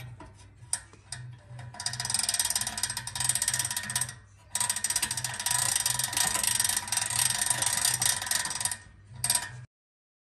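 Crane winch of a 1950s Tri-ang pressed-steel toy tow truck being cranked, its ratchet pawl clicking rapidly over the gear teeth. The clicking comes in two long runs with a short break about four seconds in, and a brief last burst near the end.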